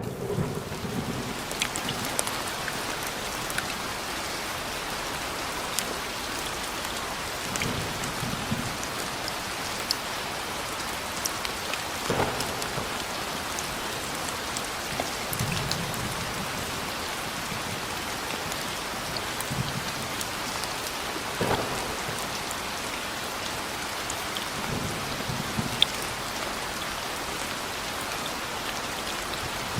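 Steady rain falling, with sharp single drop impacts now and then. Low rumbles of thunder come in several times.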